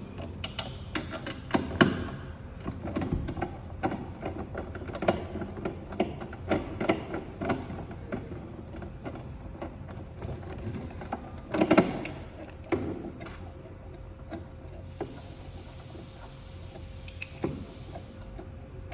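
Irregular clicks, clinks and knocks of screws and metal parts being handled and taken out of a vending machine, with a louder clatter about twelve seconds in. A steady hum from the machine, still switched on, runs underneath, and a hiss sounds for a few seconds near the end.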